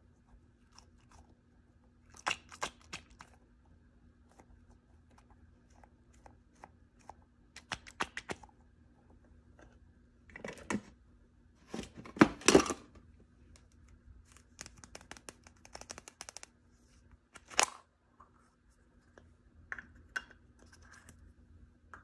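Hands opening mystery toy packaging: scattered spells of crinkling, crackling plastic and small clicks, the loudest cluster a little past halfway, over a faint steady hum.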